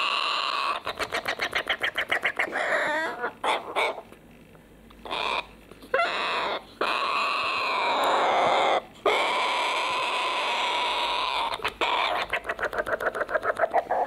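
Young hand-reared corella begging for food from a spoon with harsh, rasping calls. Runs of quick rhythmic pulsed calls, about eight a second, come near the start and near the end, with long drawn-out rasps between them.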